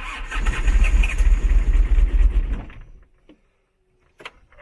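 Toyota Hiace diesel engine cranking on its starter for about three seconds on a cold start without catching, then stopping. A few light clicks follow near the end.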